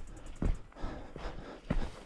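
Footsteps of a hiker on a steep trail: two heavy footfalls about a second apart, with lighter scuffs between them.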